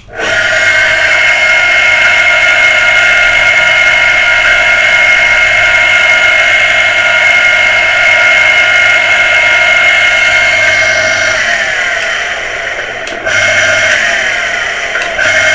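Electric water pressure booster pump motor switched on and running at speed with a steady whine over a low hum. The motor, which had only hummed before servicing, now spins up normally. About eleven seconds in its pitch slides down as it slows. A click near the end brings it back to full speed.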